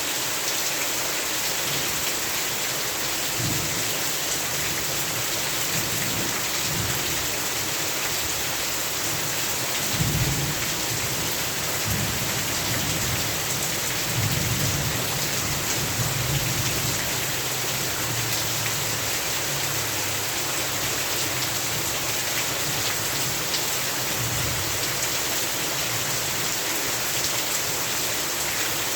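Heavy rain falling steadily, with thunder rumbling low several times, a sharp clap about a third of the way in and a longer roll near the middle.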